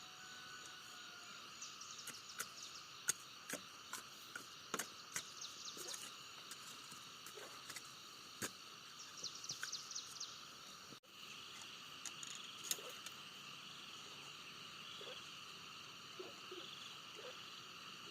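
Steady outdoor chorus of insects and frogs, with scattered sharp clicks and taps through the first two-thirds, then the chorus alone after a brief dropout about eleven seconds in.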